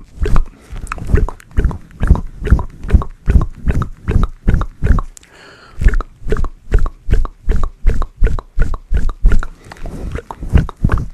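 Close-mic ASMR plucking sounds: hands working right at a furry microphone windscreen, making a fast run of soft, bassy bursts about three a second, with a short pause about five seconds in.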